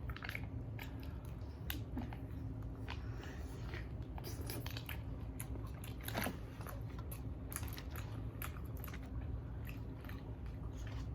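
Close-up chewing and biting of chicken wings and fries: irregular wet clicks and small crunches of mouths eating.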